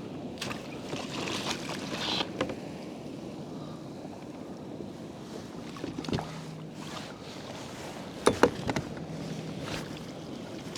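Water sloshing around a fishing kayak with handling noises, and two sharp knocks about eight seconds in.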